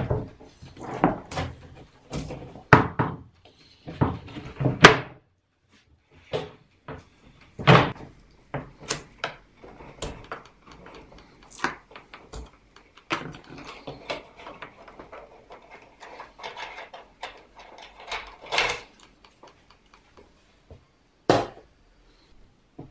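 Irregular knocks, bumps and clicks with stretches of scraping and rustling: a heavy wooden planar-speaker frame being handled and taken apart on a bench.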